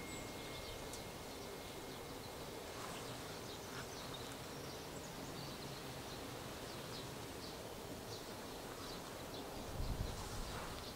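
Outdoor garden ambience: a steady soft hiss with scattered faint high bird chirps. A brief low thump comes near the end.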